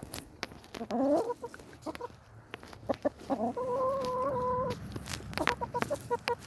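Chickens clucking close by: a rising call about a second in, a long steady call around the middle, then a run of short clucks, over scattered sharp clicks and knocks.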